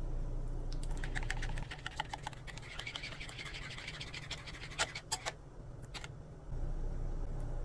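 Metal spoon stirring curd in a ceramic plate, scraping and clicking against the dish, densest in the first few seconds, with a few sharper clinks about five seconds in. A steady low hum sits under it, dropping away about a second and a half in and returning near the end.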